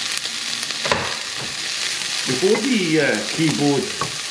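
Diced bacon and onions sizzling steadily in a hot non-stick frying pan, stirred with a slotted wooden spatula, with a single knock about a second in. A person's voice is heard briefly in the middle.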